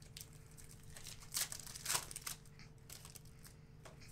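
Wrapper of a 2014-15 Panini Hoops basketball card pack being torn open and crinkled. It makes a run of crackles, with two louder rips about one and a half and two seconds in.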